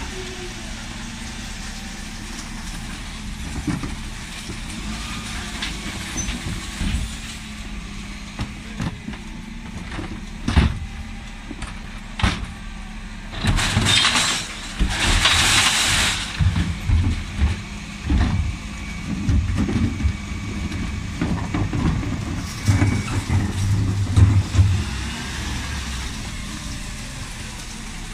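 Dennis Elite 6 refuse lorry running at the kerb with a steady low engine hum while its Terberg OmniDEKA lift works, with a few sharp knocks. About halfway through a loud rush of noise lasts about two seconds as a wheelie bin of bottles, tins and jars is tipped into the hopper, followed by uneven low mechanical sound from the lift and engine.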